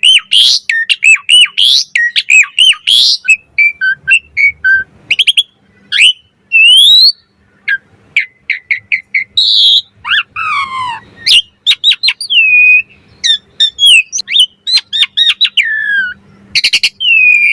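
Asian pied starling (jalak suren) in full, varied song of loud whistles. It opens with fast runs of repeated looping notes, then moves to scattered squeaks and rising and falling glides, with a long descending slurred whistle about ten seconds in.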